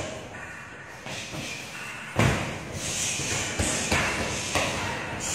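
Kicks and punches landing on a hanging heavy punching bag: one heavy thud about two seconds in, then several lighter hits.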